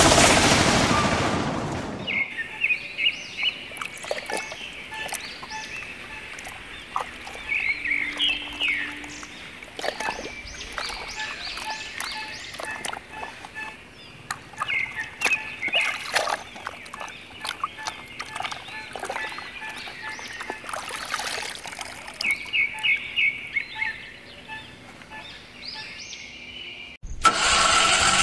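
Water splashing and sloshing as a plastic toy auto rickshaw is pushed by hand through a muddy puddle, with birds chirping in short repeated phrases. A loud noise fades out about two seconds in, and another loud noise starts abruptly about a second before the end.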